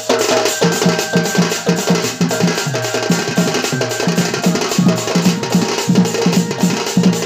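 Dhol, a double-headed barrel drum, played by hand in a fast, steady rhythm of deep pitched strokes.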